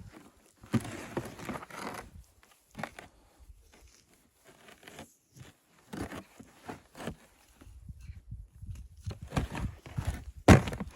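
Irregular crunching and rustling of a person moving about and handling things in snow, with one sharp, loud knock near the end.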